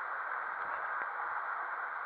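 Steady rushing of water in an enclosed tube water slide as a rider slides down it, with a faint knock about a second in.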